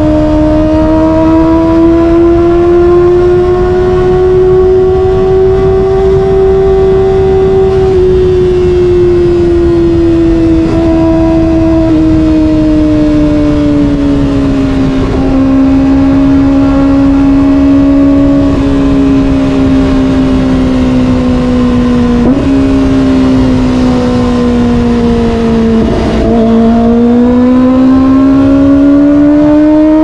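Kawasaki ZX-25R's 250 cc in-line four, fitted with an SC-Project exhaust, running at high revs while cruising. Its pitch sags slowly as the throttle eases, then climbs steadily near the end as it accelerates, with a constant rush of wind and road noise underneath.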